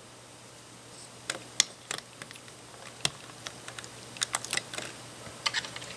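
Plastic LEGO pieces clicking as 1x2x2 wall elements are handled and pressed onto a plate: a run of small, sharp, irregular clicks starting about a second in.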